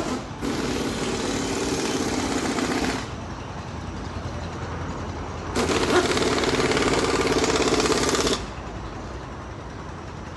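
Two bursts of rapid mechanical hammering, each about three seconds long, starting and stopping abruptly over a steady low machinery rumble.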